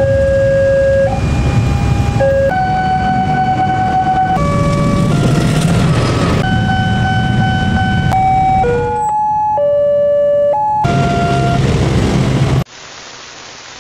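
Railroad level-crossing warning alarms, a run of short clips cut together. Each sounds a steady electronic tone at a different pitch over rumbling train and traffic noise, and the tone changes abruptly every second or two. The last second is much quieter.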